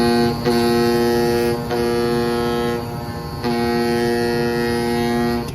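Pneumatic oscillating knife of a CNC cutting machine buzzing with a steady pitched tone while it cuts. The tone breaks off briefly a few times, goes quiet for about half a second around the middle, and stops near the end.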